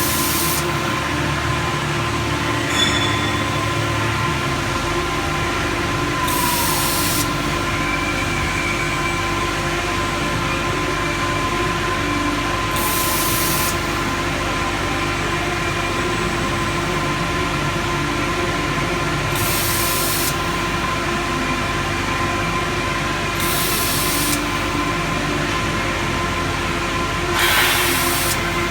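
Peddinghaus Peddiwriter 1250 CNC layout marking machine running: a steady machine hum with several held tones, broken every few seconds by a short burst of hiss lasting under a second.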